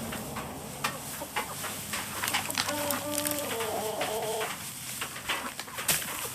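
A chicken calls in the middle, a drawn-out pitched call lasting under two seconds, over steady crackling and rustling of chopped straw being handled in the coop.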